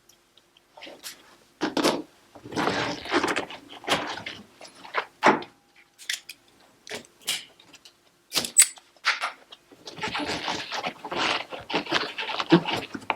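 Hand disassembly of a washing machine's lower drum assembly: irregular sharp clicks and knocks of tools and metal and plastic parts, with stretches of scraping and rustling.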